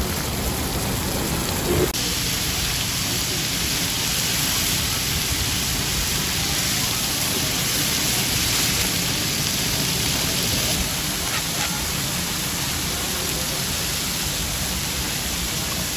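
Steady sizzling hiss of meat frying: first a steak on a cast-iron sizzling plate, then, from about two seconds in, chicken thigh steaks on a large flat-top griddle.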